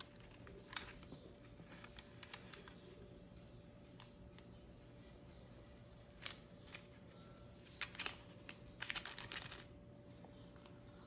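Faint scattered clicks and scrapes of a spatula against a stainless steel mixing bowl as chiffon cake batter is scraped out into a tube pan, with a quick run of taps in the last few seconds.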